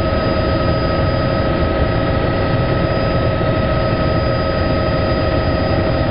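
Helicopter in flight, heard from inside the cabin: a steady, loud mix of engine and rotor noise with a constant whine over it.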